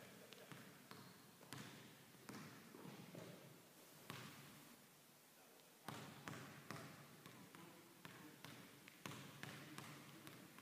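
Basketball being dribbled on a hardwood gym floor in quick, irregular bounces during a ball-handling drill, with a pause of about a second and a half near the middle.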